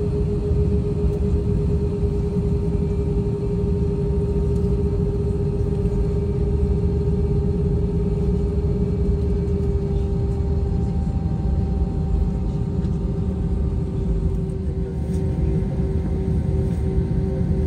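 Steady rumble of an airliner cabin, heard from inside, with a constant hum over it that turns gently pulsing near the end.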